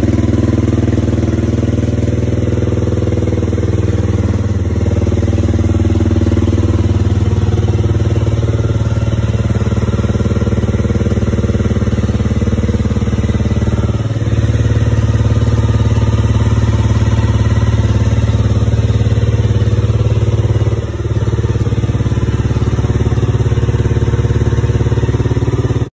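2020 Honda CB300R's single-cylinder fuel-injected engine idling steadily just after a cold start at about −20 °C, with a few brief small dips in level.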